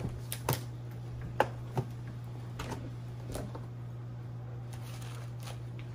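Latches of a molded plastic hardshell guitar case being snapped open and the lid handled: a series of sharp clicks and snaps, mostly in the first three seconds and once more near the end, over a steady low hum.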